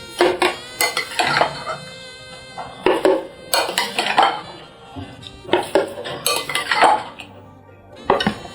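Kitchen utensils knocking and clinking against dishes in quick clusters of strikes, repeated about once a second.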